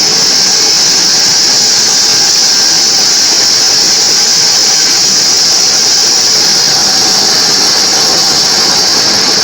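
Homemade band sawmill running steadily, its blade ripping mahogany into thin boards, with a strong high-pitched hiss over the motor.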